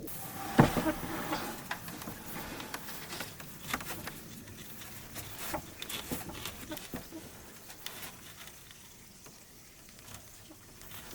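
Scattered light clicks and taps of small objects being handled, with one sharper knock about half a second in, growing sparser and fainter toward the end.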